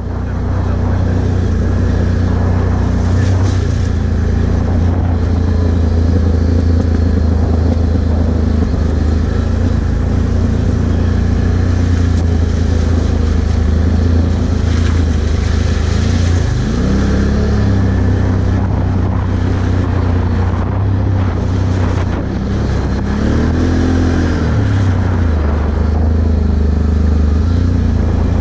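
Can-Am Outlander 1000 ATV's V-twin engine running steadily while riding along a dirt trail, with a rushing noise over it. The engine rises and falls in pitch twice, a little past halfway and again near the end.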